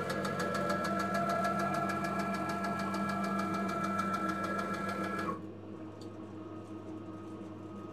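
Stepper motors of a 3040 desktop CNC router whining steadily as the gantry makes a fast move across to the tool height setter. About five seconds in, the fast move stops short and a quieter, slower hum carries on as the Z axis creeps down to probe the tool and measure its length offset.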